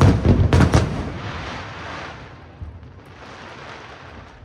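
Aerial fireworks shells bursting: a quick run of three or four loud booms within the first second, followed by a noisy crackle that fades away over the next two seconds.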